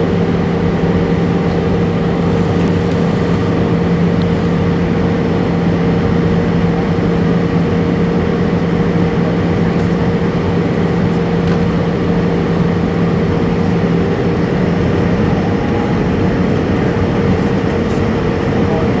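Airbus A320 cabin noise: the jet engines and airflow make a steady rush with a low hum. One low tone fades out about 15 seconds in.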